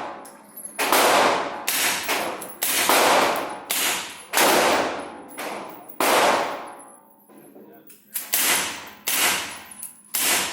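Gunshots at a shooting range: a dense run of about a dozen sharp reports, each ringing off briefly, with a gap of about a second past the middle before the shots resume.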